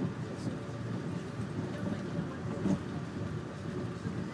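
Steady rumble of a moving train, heard from inside the carriage, with an occasional faint click.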